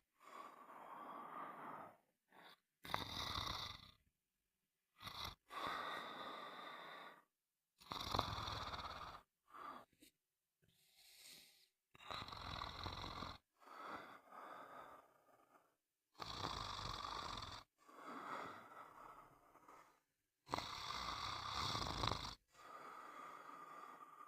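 A person snoring: a run of rasping snores, each a second or two long, broken by short gaps of silence.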